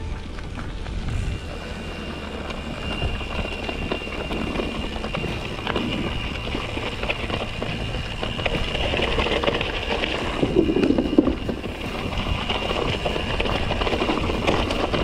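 Mountain bike riding down a dirt and loose-rock singletrack: tyres rolling over the trail, the bike rattling and knocking over bumps, and wind rumbling on the microphone, with a thin steady high whine from about a second in.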